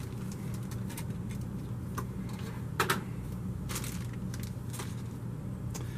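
Scattered light clicks and taps of small hard plastic toy pieces being handled, some with a faint rustle of their plastic bags, over a steady low hum.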